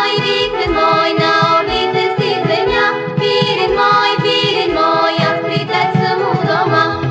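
Recorded song music, an instrumental passage between sung verses: sustained melody notes over a steady low beat of about one hit a second.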